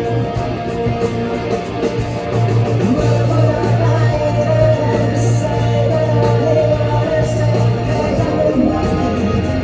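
Live rock band playing, with guitars over a bass line and a male voice singing.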